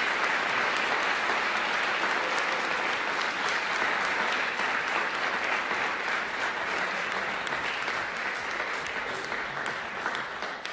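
Audience applauding steadily, the clapping slowly dying down near the end.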